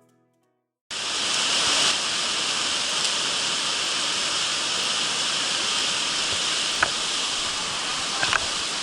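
Mountain stream water rushing steadily over rocks, cutting in abruptly about a second in after a moment of silence, with a couple of brief faint chirps near the end.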